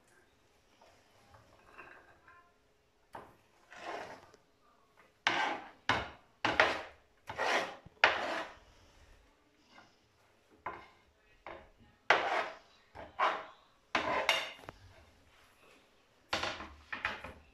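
A kitchen knife scraping across a plastic cutting board in a string of short strokes, sweeping finely chopped onion off onto a plate.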